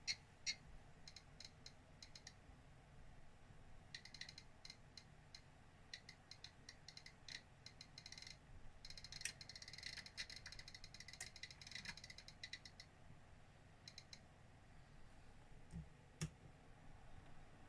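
Near silence broken by faint small clicks and ticks, with a stretch of light scratching in the middle and two sharper clicks, one just after the start and one near the end.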